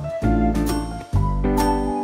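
Background music with a steady beat, about two strokes a second, over sustained bass and chord notes.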